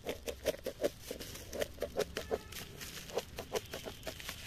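Scissors cutting through bubble wrap: a quick, irregular series of short snips and plastic crackles.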